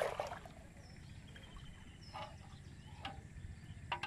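Quiet ambience of a flooded field: a low steady rumble, a few small splashes and clicks as small fish are picked from a gill net over a basin, and faint high chirps of birds or insects.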